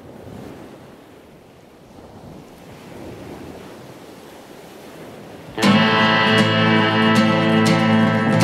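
A soft, steady rushing noise, then about five and a half seconds in, loud guitar music comes in suddenly.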